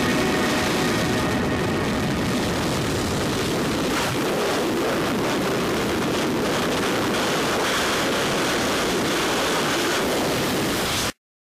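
Wind rushing over the microphone during skydiving freefall: a steady, even rush that cuts off abruptly near the end. Music fades out under it in the first second or so.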